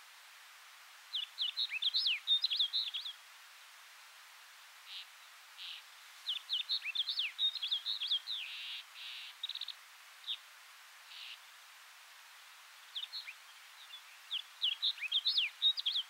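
Snow bunting singing: three bursts of quick, warbling song, the high notes sliding up and down, about a second in, around six seconds in and near the end, with a few short raspy notes between the bursts.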